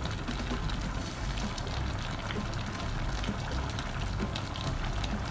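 Coconut milk with sliced saba bananas boiling in an open pan, a steady bubbling with many small pops and crackles. The liquid is being boiled down uncovered so it reduces and thickens.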